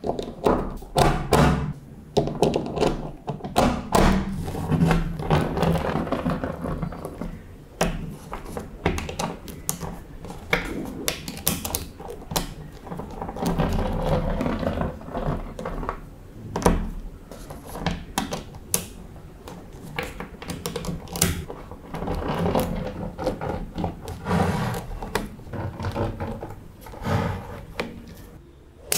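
Small magnetic balls clicking and snapping against one another in quick, irregular taps, with stretches of rattling between the sharper clicks.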